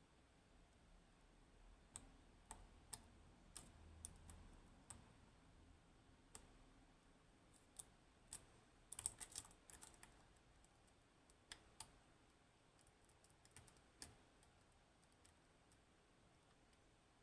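Faint, scattered metallic clicks of a lock pick and tension wrench working the pins of an Assa 600 pin-tumbler lock, with a quick run of clicks about nine seconds in.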